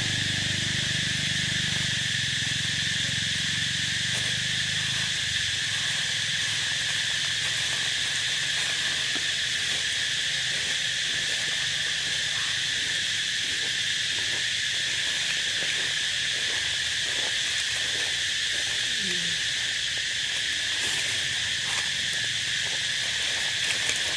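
Steady, high-pitched drone of a tropical insect chorus, with faint, scattered rustles of dry leaves underneath as macaques shift about on the leaf litter.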